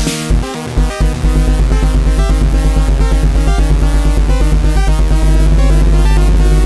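Electronic techno-style jam on an Arturia Drumbrute Impact drum machine with an Arturia Minibrute 2S synthesizer. Spaced drum hits give way about a second in to a fast, steady low pulse, which fills out further near the end.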